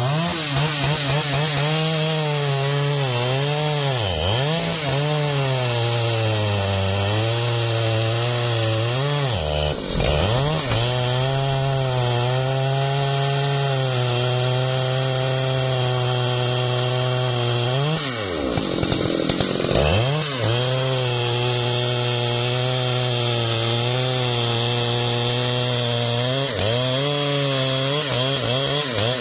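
Large two-stroke Stihl chainsaw running at full throttle while cutting into the base of a thick hardwood trunk. The engine pitch sags and recovers several times as the chain bites into the wood, with a deeper drop about eighteen seconds in and again near the end.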